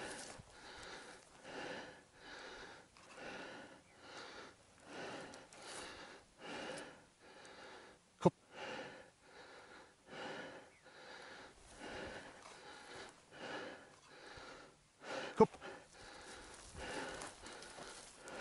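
Heavy, even breathing close to the microphone, one breath a little under every second, from a person out of breath on a hillside. Two short sharp clicks stand out, about seven seconds apart.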